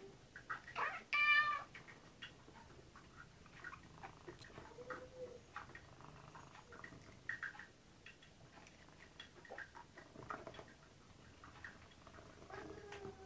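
Domestic cats meowing to ask for their wet food: one loud, high meow about a second in, then a few softer meows, the last near the end. Light clicks and taps sound between the calls.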